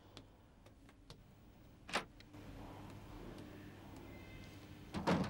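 A few faint clicks, then a single sharp knock about two seconds in, then a steady low room hum, with a louder thump at the very end.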